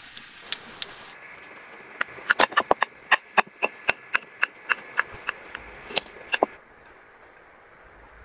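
A quick, uneven series of sharp taps or clicks, about three or four a second, some with a short ringing note. They stop suddenly after about four seconds.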